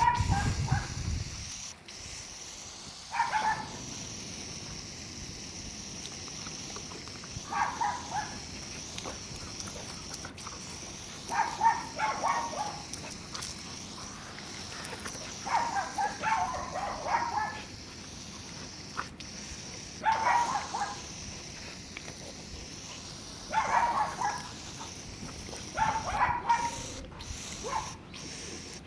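Cattle dog puppy barking and yipping in short clusters every few seconds as it plays at catching a water stream. A steady high hiss runs underneath.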